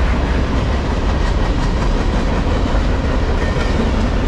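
Empty trash-train freight cars rolling past close by: a steady rumble and clatter of steel wheels on the rails.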